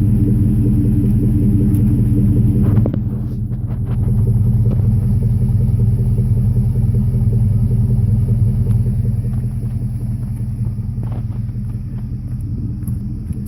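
2002 Chevy Tahoe's 5.3-litre V8 idling through a Dynomax cat-back exhaust, a steady deep rumble. About three seconds in it turns a little quieter and smoother, then fades slightly toward the end.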